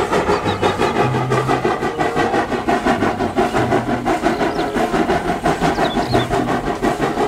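Steam locomotive running along the line pulling coaches, its exhaust beating in a quick, even rhythm.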